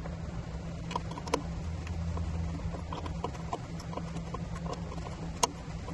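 Light irregular metal clicks and ticks of a folding hex-key multitool working small screws into the underside of an e-bike frame, the screws taken in alternately a little at a time. Two sharper clicks stand out, about a second and a half in and near the end.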